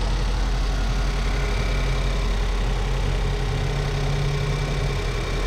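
2015 Ford Transit Connect's 1.6-litre turbocharged four-cylinder engine idling steadily.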